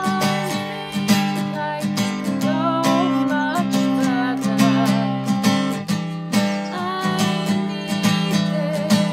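Acoustic guitar strummed in a steady rhythm, with a woman's voice singing over it at times.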